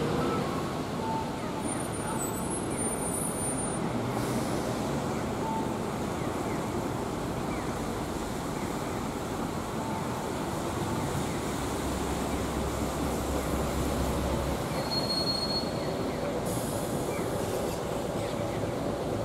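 Steady outdoor background rumble of a station plaza: continuous road and rail noise with no single event standing out, a deeper rumble swelling for a few seconds past the middle.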